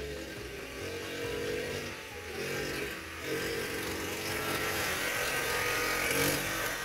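Hunsun HM50E Bandit mini bike's small single-cylinder engine running as it is ridden past, growing louder as it comes close and peaking about six seconds in.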